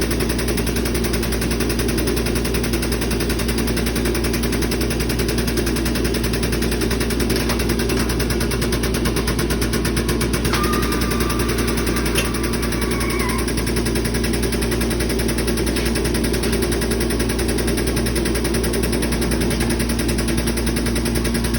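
Air-over-hydraulic pneumatic jack on a shop-built forging press, its air pump running as a fast, steady, loud chatter while it drives the ram down on a hot billet.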